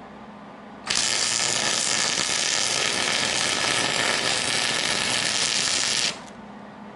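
MIG welding arc on aluminium, from a Millermatic 175 with a standard MIG gun feeding .035 aluminium wire: a steady hiss that starts suddenly about a second in and cuts off about five seconds later, one weld bead.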